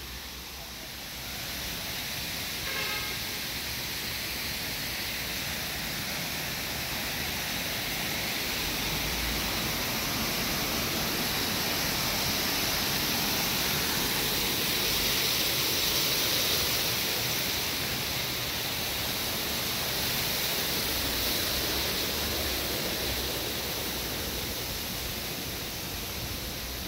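Steady rush of running spring water, a hiss without pitch that swells somewhat around the middle and then eases a little.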